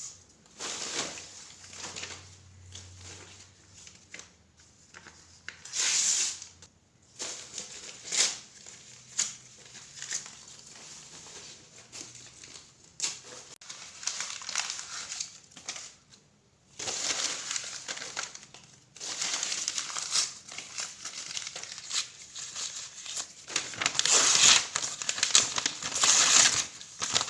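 Paper being ripped again and again in short and longer tears, with crinkling between them; the tearing is densest and loudest in the last few seconds.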